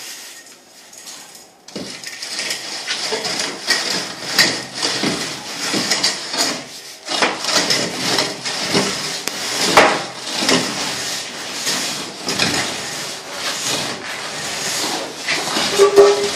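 A straightedge drawn across freshly applied cement render, scraping in repeated strokes with occasional knocks as the render is screeded level. The scraping starts about two seconds in.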